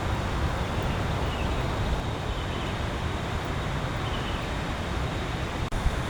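Steady heavy rain mixed with strong wind, with a low rumble of wind on the microphone; the sound cuts out for an instant near the end.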